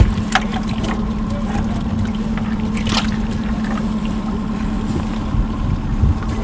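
A boat motor idling with a steady low hum. A few short, light clicks or knocks sound over it.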